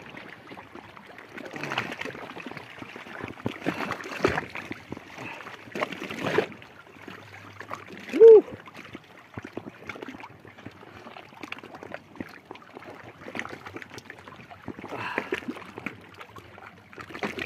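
Water sloshing and splashing irregularly around a person wading through deep water, with a few louder splashes. About eight seconds in there is a brief, loud voiced sound, like a short grunt.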